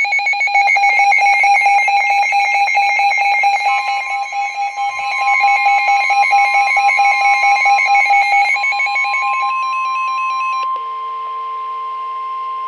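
Weather radio receiver's rapid electronic alarm beeping, joined about four seconds in by the NOAA Weather Radio 1050 Hz warning alarm tone, a steady single pitch. The beeping stops near the end, leaving steady tones that signal a warning broadcast is about to follow.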